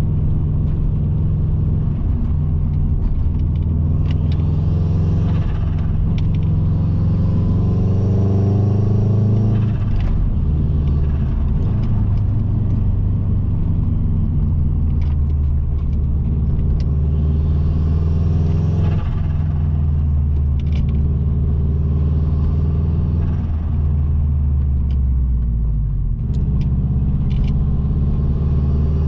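Turbocharged EJ20 flat-four engine of a bug-eye Subaru Impreza WRX pulling under acceleration, its note rising through the revs and dropping at gear changes about ten seconds in and again near nineteen seconds.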